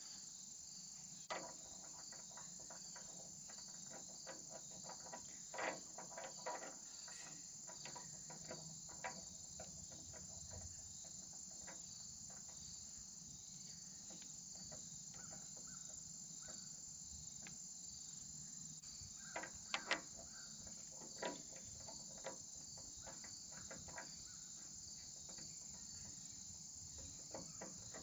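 Steady high insect chorus with a repeating pulse. Scattered clicks and knocks of hydraulic hose fittings being handled on the valve block, the loudest pair about 20 seconds in.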